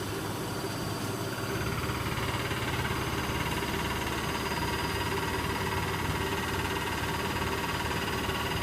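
Electrolux W455H commercial washing machine running, a steady motor hum and drum whir that steps up a little about a second and a half in, as the drum speeds up in its spin.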